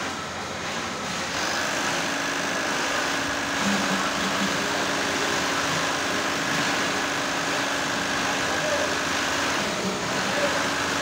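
Industrial sewing machine running steadily with a whirring hum, starting about a second in and stopping near the end, over the steady machine noise of a sewing workshop.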